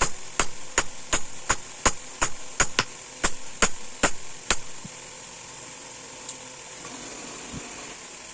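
Hammer blows on steel, about two and a half a second, forging a leaf-spring blank on an anvil. The strikes stop about four and a half seconds in.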